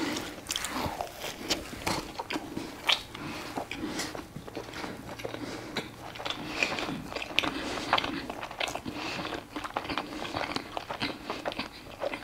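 A man biting into a hamburger and chewing it, close to a clip-on microphone: a steady run of short, irregular wet mouth clicks.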